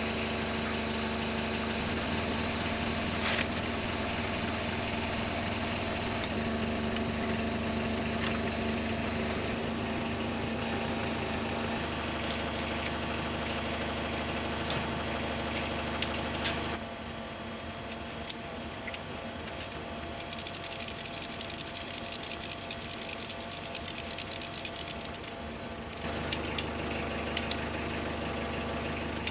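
Heavy-equipment engine running steadily with a low hum. About 17 seconds in it turns quieter and the low hum fades, coming back strongly about 26 seconds in. A few short knocks sound over it.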